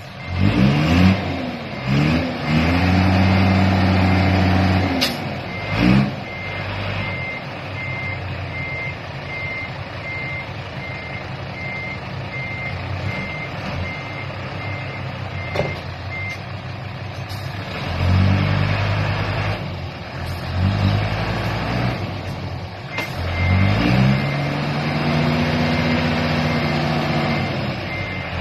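Truck reversing: its reversing alarm beeps at a steady pace, pausing for several seconds in the middle and then starting again. The diesel engine revs up and eases off several times under the beeping.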